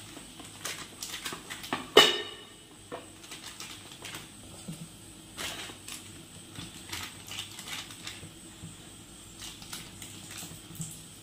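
Oiled hands patting and pressing soft maida dough flat on a plastic sheet over a steel plate: scattered soft pats and crinkles of the plastic, with one sharper knock about two seconds in.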